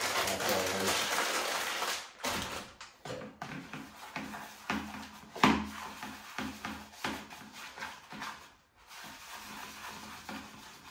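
Brown breadcrumb poured from a packet into a plastic tub, a dense rustle for about two seconds. Then a hand mixes the damp groundbait in the tub: rubbing with scattered knocks against the plastic, one sharp knock about halfway through.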